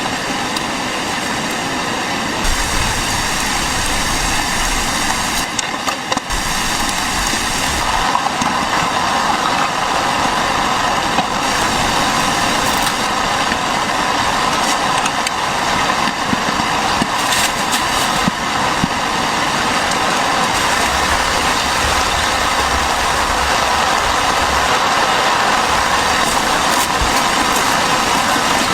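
Steady, loud rushing noise of heavy rain and strong wind, with low rumbles coming and going.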